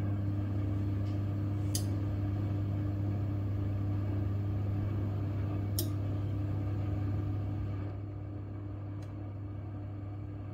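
Steady low hum with a few faint clicks; the hum drops slightly in level near the end.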